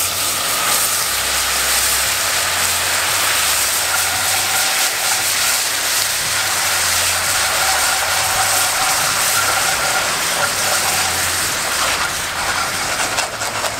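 Orange juice poured into hot oil and sugar in a cast-iron pot, sizzling and bubbling hard. The sizzle starts suddenly as the juice hits the pan and holds steady as the sauce is stirred with a wooden spoon.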